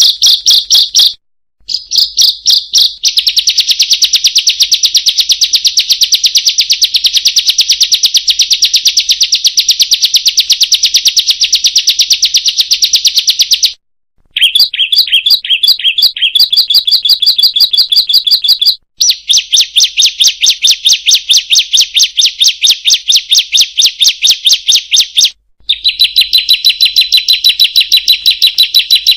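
Bar-winged prinia (ciblek) song: long runs of rapid, evenly repeated high chipping notes, broken by brief pauses a second, fourteen, nineteen and twenty-five seconds in.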